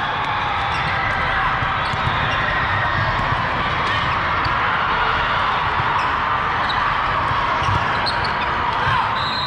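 Steady din of an indoor volleyball venue: many overlapping voices, with scattered ball hits.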